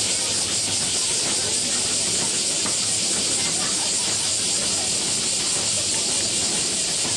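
Steady high-pitched hiss, even throughout, with faint background murmur beneath it.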